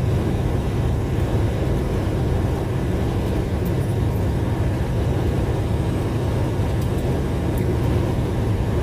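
Steady low rumble of a semi-truck, heard inside the cab.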